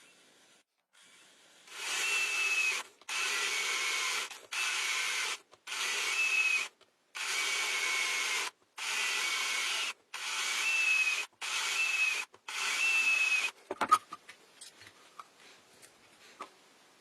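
A small power tool, drill-like, runs in about nine short bursts of around a second each with a faint whine. It is followed by one sharp knock and a few light clicks.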